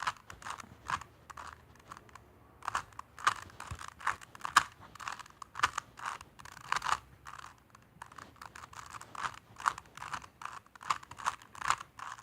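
Plastic Rubik's cube being turned layer by layer: quick irregular runs of sharp clicks and clacks, with a couple of short pauses.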